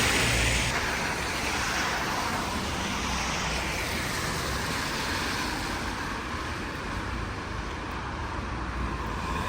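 Street traffic noise: a vehicle passing at the start fades away into a steady traffic hum, which swells again near the end.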